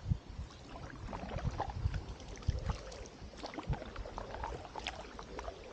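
Kayak paddling: paddle blades dipping into the river with small splashes and drips, mixed with irregular low thumps.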